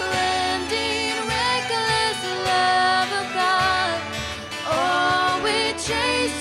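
A woman singing a slow worship song, accompanied by strummed acoustic guitar and violin.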